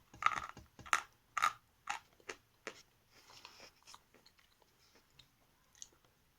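Hard lumps of Sever edible chalk being bitten and crunched between the teeth: about six sharp crunches in the first three seconds, then a few faint crackles. The chalk is stone-hard and bites with difficulty.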